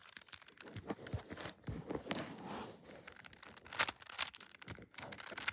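Plastic 3x3 Rubik's cube being turned through an algorithm, its layers giving a quick irregular run of clicks and scrapes, one louder clack near four seconds in.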